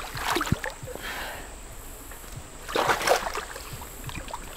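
Water splashing and sloshing as a person wades into a creek waterhole, with a short splash at the start and a louder one about three seconds in.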